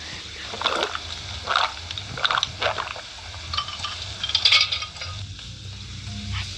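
Wet eating sounds: chewing and slurping in several short bursts, over a low steady hum.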